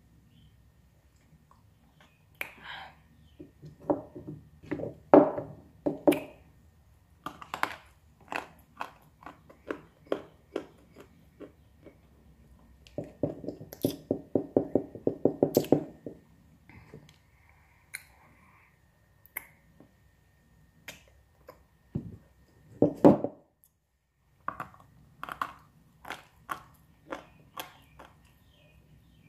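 Someone biting and chewing chunks of dry brown clay: sharp crunches and crackles as the clay breaks between the teeth, with a fast, even run of chewing crunches midway through and one loud crunch near the end.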